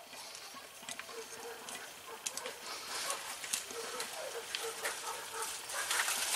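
Light clicks and clinks of a hand tool working on the cast-iron parts of an antique Maytag engine, with distant dogs barking faintly in the background.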